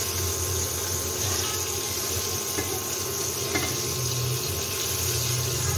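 Hot oil sizzling and bubbling steadily around battered chicken pieces deep-frying in a small saucepan, with a steady low hum underneath and a couple of faint clicks of the slotted spoon against the pan.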